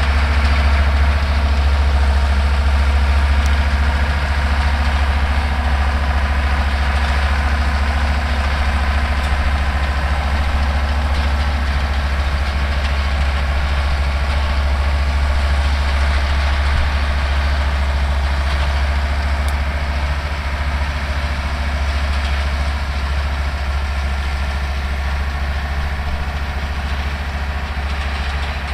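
Older Deutz tractor's diesel engine running steadily while pulling and driving a New Holland round baler, with a strong low hum and even machine noise. The sound is unbroken throughout.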